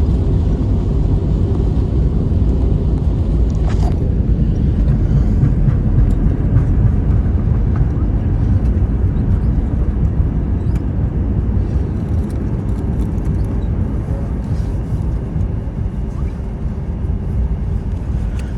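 Cabin noise of an Airbus A321 rolling on the ground just after landing: a steady low rumble of the engines and the wheels that gradually eases as the aircraft slows.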